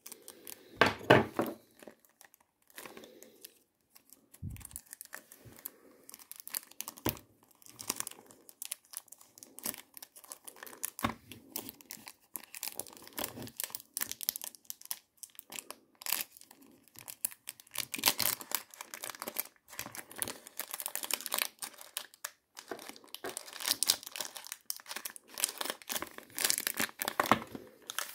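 Plastic film wrap on a small cardboard perfume box being torn and peeled off, crinkling and crackling in irregular bursts, busier in the second half.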